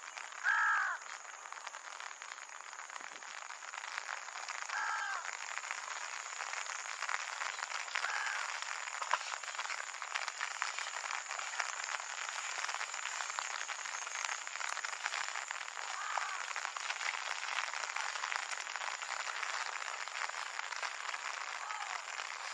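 Steady rain falling with a fine patter, and a crow cawing five times, the first call near the start the loudest and the later ones fainter.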